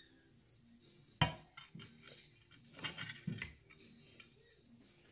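A white plastic spoon knocking and clinking against a drinking glass as a child stirs a thick glue-and-baking-soda slime mixture, in scattered strokes, the loudest a little over a second in and a quick cluster around the three-second mark.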